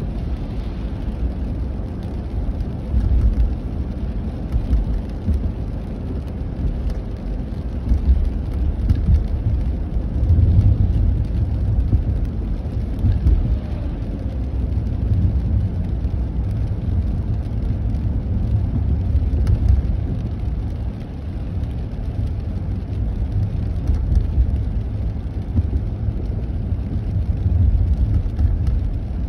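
Steady low rumble of a car driving on a wet, slushy road, heard from inside the cabin: tyre and engine noise with a faint hiss of tyres on the wet surface, swelling and easing a little.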